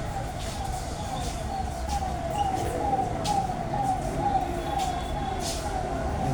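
A siren-like tone that repeatedly sweeps down in pitch, about twice a second, over a low rumble.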